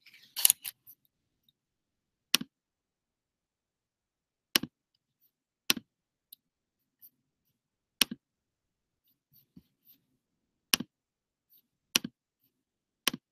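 Computer mouse clicking: about eight sharp single clicks, each a quick press-and-release double snap, spaced irregularly one to three seconds apart, with near silence between.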